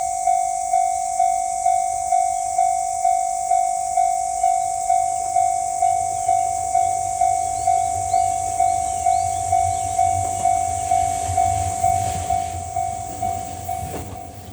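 Japanese railway level crossing warning bell ringing about twice a second. In the second half a low rumble grows as the JR 185-series train approaches, and near the end the ringing fades and stops.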